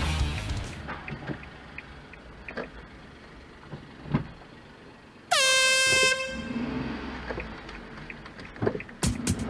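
Music fades out at the start. About five seconds in comes a single horn blast: one held tone of just under a second that drops slightly in pitch as it starts. A low engine hum follows.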